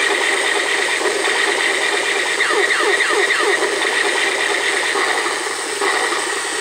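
Battery-powered Zadak toy robot playing its electronic sound effects: a looping laser-gun effect of rapid falling electronic tones, about five a second, over a steady pulsing electronic tone.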